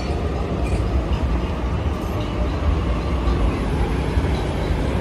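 Double-deck electric commuter train passing overhead on an elevated steel railway viaduct, a steady low rumble.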